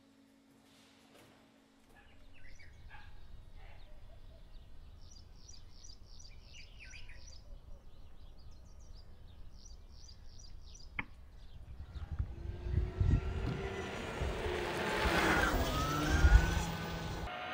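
Birds chirping over a low outdoor rumble. From about twelve seconds in, a Zero DS electric motorcycle rides past: its electric motor gives a whine that glides up and down over a building rush of tyre and wind noise, loudest near the end.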